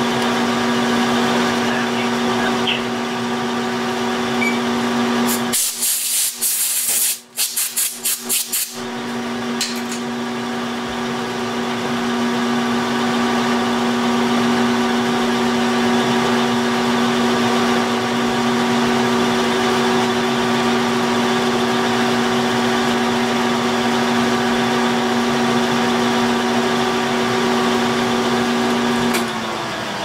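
Milling machine running steadily with a constant hum while an end mill cuts a keyway in a steel shaft under power feed. About six seconds in, a choppy hiss lasts about three seconds. Near the end the machine is switched off and its pitch falls as the spindle winds down.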